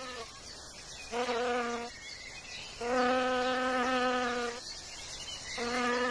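Wasp's wings buzzing in flight at a steady pitch, in bouts of one to two seconds that break off and start again several times as it comes and goes.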